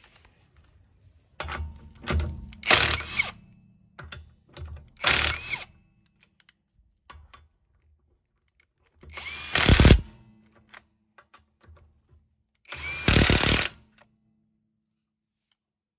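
Cordless Bauer impact wrench hammering on car wheel lug nuts in several short bursts, each half a second to a second long, with pauses as it moves from nut to nut.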